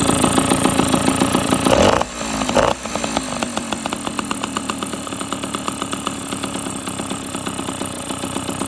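Tomos A35 moped's single-cylinder two-stroke engine with a ported Airsal 65cc cylinder kit, running at raised revs. About two seconds in, the revs fall sharply, give one short blip, then settle back to a lower, steady running speed.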